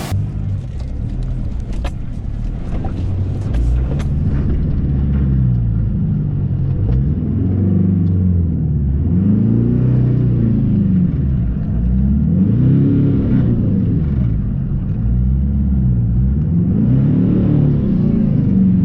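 A four-wheel drive's engine revving up and down over and over, its pitch rising and falling every two to three seconds, with a few sharp clicks and knocks in the first few seconds.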